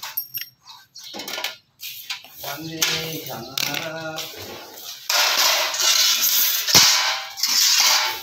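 PVC spandrel ceiling panel being handled and flexed: a few sharp plastic clicks at first, then several seconds of loud rustling, scraping noise as the panel is turned and laid down, with one sharp snap a little before the end.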